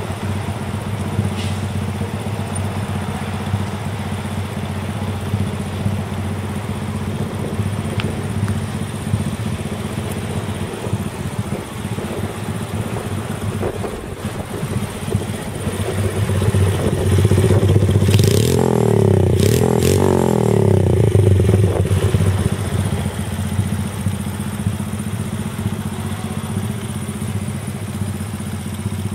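Honda Gorilla's small four-stroke single-cylinder engine, breathing through an OVER aftermarket muffler, idling steadily. A little past halfway it is revved up and down several times for a few seconds, then settles back to idle.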